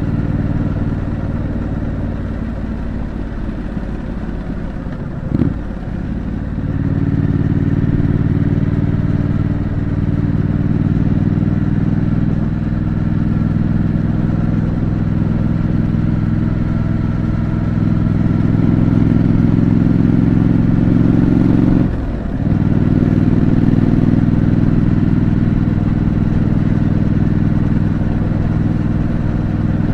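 2025 Triumph Scrambler 900's 900 cc parallel-twin engine running under way through its stock exhaust, a steady low throb. The note drops out briefly twice, about five seconds in and again about 22 seconds in, as at gear changes, and climbs in level before the second break.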